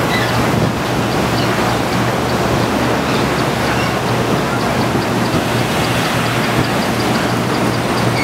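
Steady, loud rushing noise of cut sugar cane stalks sliding off a tipped cane trailer, over a constant low hum of sugar mill machinery running.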